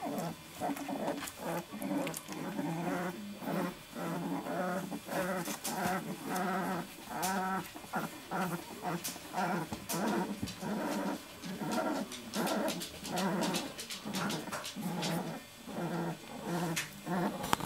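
Young puppies grunting, whimpering and giving small growls as they squirm over one another, short calls coming again and again every half second or so, with light rustling and clicks between them.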